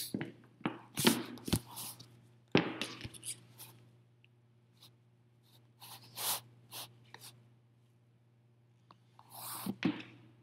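Close handling noise of the camera being set in place: rubbing, scrapes and knocks, thickest in the first four seconds, with a few more later and near the end. A steady low hum sits under it throughout.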